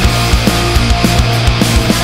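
Heavy rock or metal music with distorted guitar and fast, steady drum hits.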